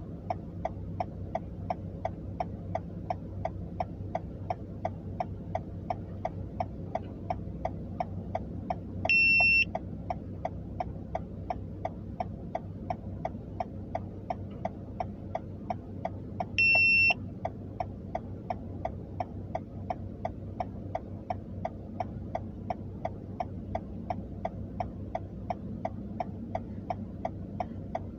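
A car's turn-signal or hazard flasher ticking steadily and evenly inside the cabin, over the low hum of the idling car. A loud, high electronic beep sounds twice, about eight seconds apart.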